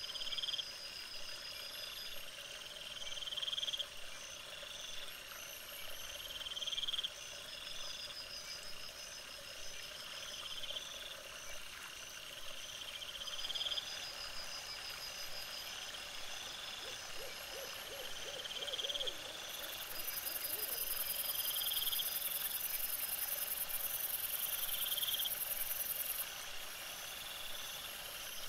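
Night-time animal calls: a short rising call repeated about every couple of seconds over a steady high pulsing chirr, with a brief rapid trill about seventeen seconds in. A high hiss joins for several seconds past the middle.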